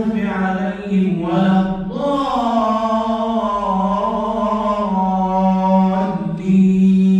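A man reciting the Quran aloud in a slow melodic chant, drawing out long held notes.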